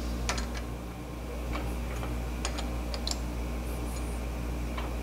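Scattered light metallic clicks and ticks, about eight at uneven intervals, as a four-jaw lathe chuck is turned by hand and the workpiece is checked for runout against a dial test indicator. A steady low hum runs underneath.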